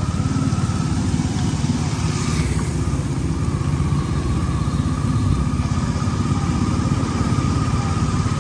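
Heavy rain pouring while strong wind buffets the microphone with a loud, fluttering rumble. A faint, steady high whine runs under it.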